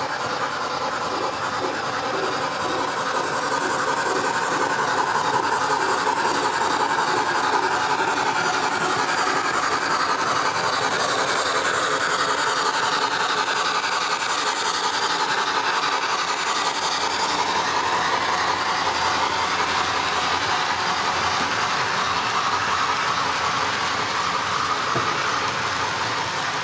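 Model steam locomotive and a long string of model coal hopper cars rolling past on the layout's track, a steady sound of wheels running on the rails that swells a little as the train passes.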